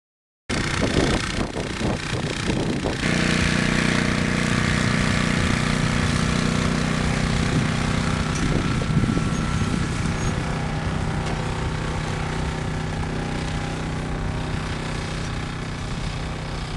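The engine of a tanker spray rig running steadily while its spray cannon sprays the stockpile, over a steady hiss. It cuts in abruptly about half a second in and gets louder with a deeper hum about three seconds in.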